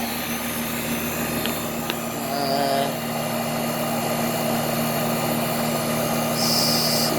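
1980s American Standard air-conditioner condensing unit running: its Climatuff compressor hums steadily under the rush of the condenser fan. A brief higher tone sounds about two and a half seconds in.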